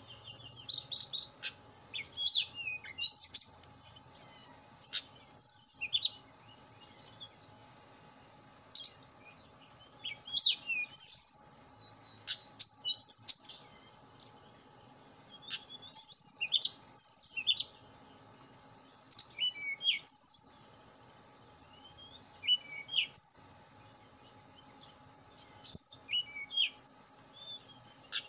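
Tledekan gunung (hill blue flycatcher) singing in a cage: short phrases of quick, high whistled notes that sweep up and down, repeated every second or two with a few longer pauses.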